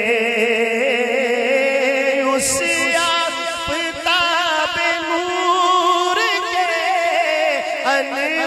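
A man's solo voice singing an Urdu devotional kalam, drawing out long wavering vowels between the lines of verse, with a brief hiss about two and a half seconds in.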